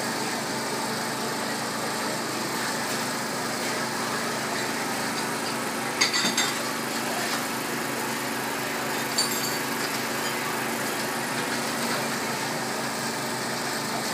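Construction-site engine running steadily, with a brief cluster of sharp metallic knocks about six seconds in and a single knock near nine seconds.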